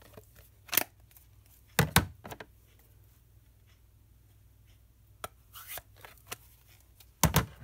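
Plastic stamp ink pads being snapped shut and set down: a handful of separate sharp clicks and knocks, the loudest around two seconds in and near the end.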